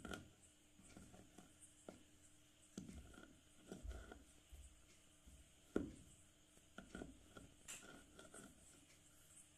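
A rolling pin rolled over pieces of white school chalk on a board, crushing them with faint, irregular crunches and crackles, the sharpest snap a little under six seconds in.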